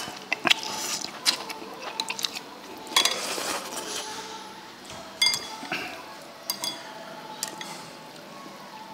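Chopsticks clinking and scraping against a bowl while stirring and lifting instant noodles: many short, sharp clicks, a few of them ringing briefly.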